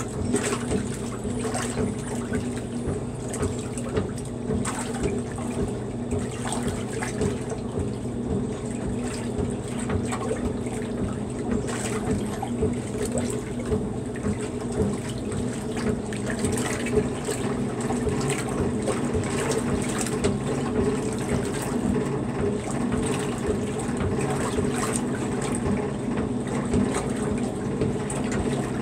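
Maytag wringer washer agitating a load: soapy water sloshing and churning around the agitator, over a steady hum of the machine's drive.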